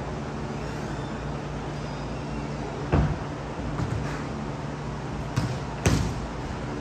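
Sharp thuds of a ball being struck and bouncing during an indoor match, over a steady low hum. One loud thud comes about three seconds in, a few lighter knocks follow, and another loud one comes near the end.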